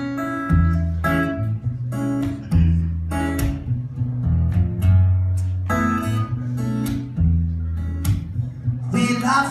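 Solo acoustic guitar strummed in a steady rhythm, with low notes sustaining between the strums, played live as an instrumental passage between sung verses.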